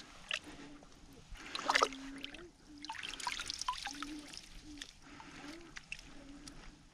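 Hands sloshing and splashing in shallow pond water while bedding a trap set among sticks and leaves, with trickling as the water is stirred; the sharpest splash comes a little under two seconds in.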